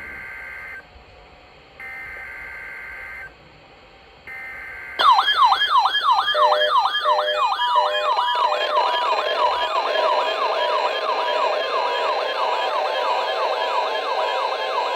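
NOAA Weather Radio weekly test signals: three short bursts of the screechy digital data header (SAME), then about five seconds in a loud siren-like alarm tone sweeping down in pitch about three times a second. A few seconds later a steady high alarm tone joins it.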